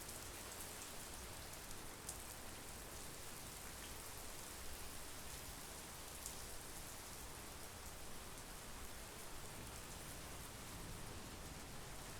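Steady monsoon rain falling, an even hiss with a few sharper drop ticks now and then.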